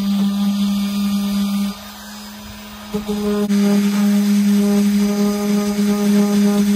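Electric orbital sander running and sanding a pine tabletop, a steady pitched hum. It turns quieter for about a second near the two-second mark, then is loud again.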